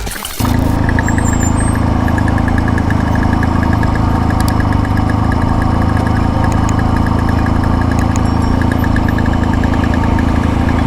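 Electronic music cuts off about half a second in, followed by a motorcycle engine running steadily, with a faint fast regular ticking over it.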